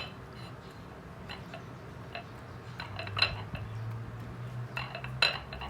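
A few light clinks and taps of a fork on a plate, the loudest about three seconds in, over a low steady hum.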